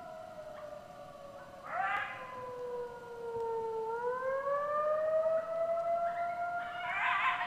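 Siren winding slowly down in pitch, then rising again. A coyote close by answers it with howls and yips, in a burst about two seconds in and again near the end.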